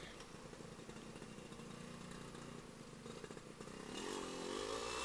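Suzuki Satria 120R's tuned two-stroke single-cylinder engine running faintly as the bike is ridden.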